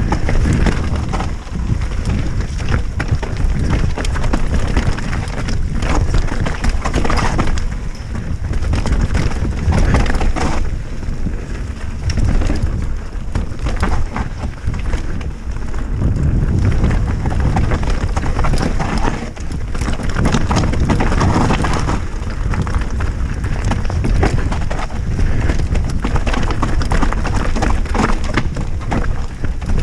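Mountain bike descending a rough dirt trail at speed: steady wind rumble on the helmet or bike-mounted action camera's microphone, with the tyres crunching over dirt and stones and the bike clattering over bumps.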